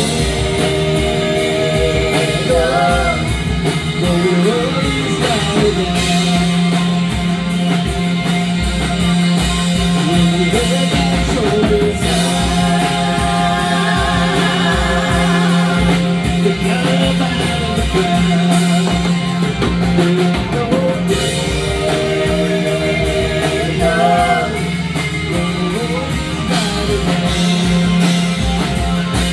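Rock band playing a song with drums and guitar. A wavering melodic lead, voice or guitar, rides over a steady held low note.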